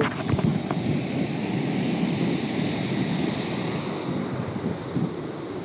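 Ocean surf washing on the beach, with wind buffeting the microphone, and a few faint clicks in the first second.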